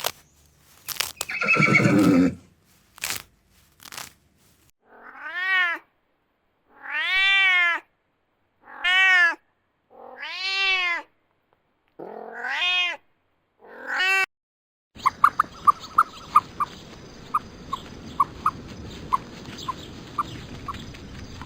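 A cat meowing repeatedly: six drawn-out meows, each rising then falling in pitch, about a second and a half apart. They are preceded by a few short noisy snorts or breaths, and after the meows a steady hiss with short high pips takes over.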